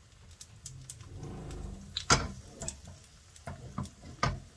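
Frying pan knocking and clicking against the gas hob's metal pan support as it is tilted and swirled to spread pancake batter over the bottom. The sharpest click comes about two seconds in, with a brief low hum before it.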